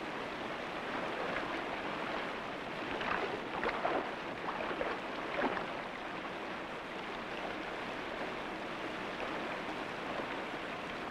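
Steady rushing of running water, with a few short splashes about three to five seconds in as someone wades and sloshes through shallow muddy water.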